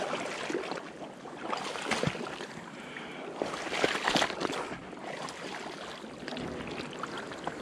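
Boots wading through knee-deep marsh water and soft, sucking mud: irregular splashes and squelches, a step every second or two.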